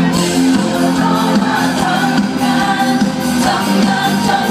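Live rock band playing through a concert sound system with electric guitars, drums and a singer, loud with a steady beat, heard from among the crowd.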